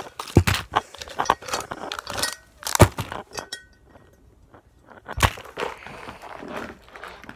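Handling noise from fishing tackle: plastic-packaged jigs rustling and being moved about, with many small clicks and several sharp knocks, the three loudest about half a second, three seconds and five seconds in.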